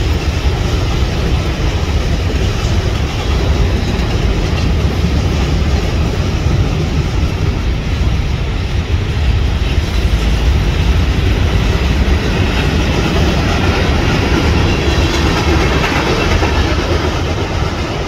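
Freight train's tank cars rolling past: a steady rumble and clatter of wheels on rail, easing off slightly near the end.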